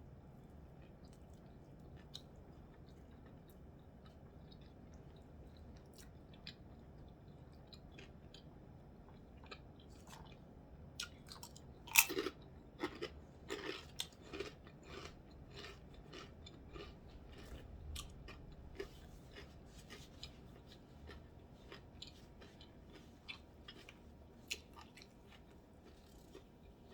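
A person eating close to the microphone: soft chewing for the first ten seconds or so, then a sharp, crunchy bite about twelve seconds in followed by a run of crunching chews that thin out near the end.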